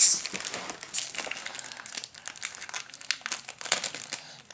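Foil trading-card pack wrappers crinkling and crackling as they are handled, in quick irregular rustles, loudest right at the start.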